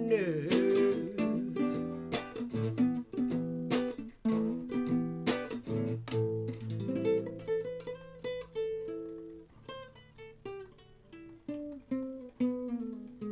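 Acoustic guitar played solo, with chords strummed and single notes picked, growing gradually softer toward the end.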